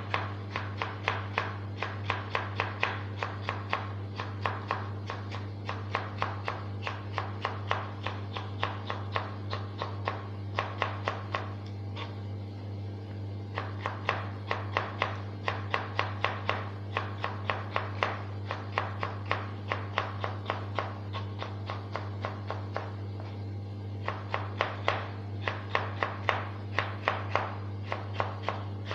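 Knife chopping on a cutting board in a quick steady rhythm, about four cuts a second, pausing briefly twice, over a steady low electrical hum.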